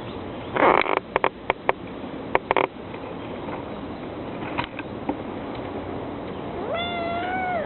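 A young kitten gives one short meow near the end. Before it, in the first three seconds, there is a brief rustle and several sharp clicks.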